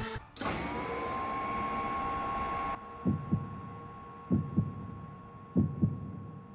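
A steady high electronic tone that slides up slightly at first and then holds. About three seconds in it is joined by a heartbeat sound effect: paired low thumps, about one pair every second and a quarter.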